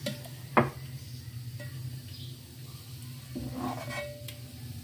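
Metal ladle clinking against the steel pot and glass dish as thick custard is ladled out: one sharp clink about half a second in, then a scrape with a short ring near the end, over a steady low hum.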